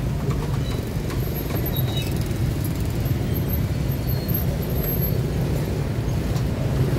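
Steady low rumble of street noise, with a few faint clicks.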